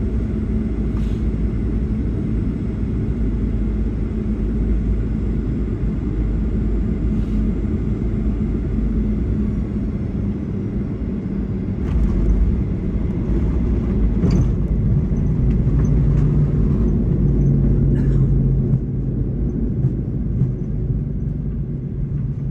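Jet airliner cabin noise on the ground after landing: a steady low rumble of the engines and rolling wheels while taxiing. A faint high whine falls in pitch about ten seconds in, and a few sharp knocks come about twelve and fourteen seconds in.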